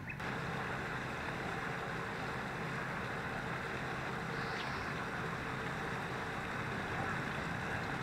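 Steady rushing of flowing water, with a short faint high chirp about halfway through.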